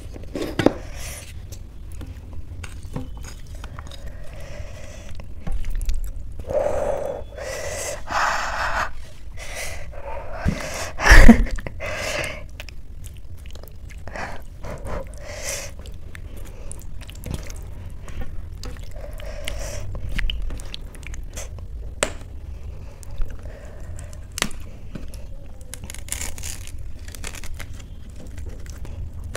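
Fingers mixing and mashing soft boiled rice with vegetables on a steel plate, close to the microphone: wet squishing, with small clicks and scrapes of the hand against the metal, and eating sounds between. One loud thump about eleven seconds in.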